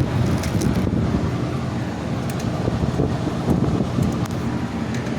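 Motor vehicle running with a steady low rumble and a few faint light ticks.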